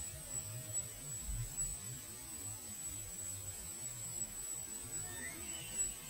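Steady background noise: a faint constant high-pitched whine over a low rumble, with no shot or other distinct event.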